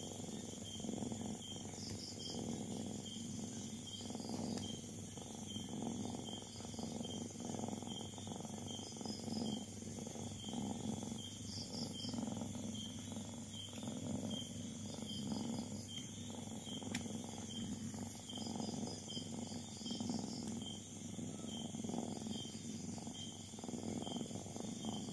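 Domestic cat purring while her kittens nurse, a low steady purr that swells and fades in an even rhythm.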